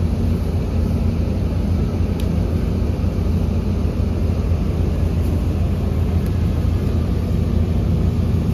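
Mobile crane's diesel engine running steadily with a deep, constant hum as the crane hoists a tall cross.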